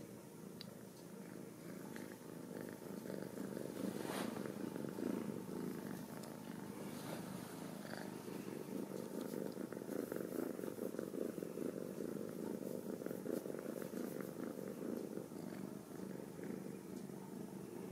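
Ragdoll kitten purring steadily, close up, a continuous low pulsing hum, with a brief click or rustle about four seconds in.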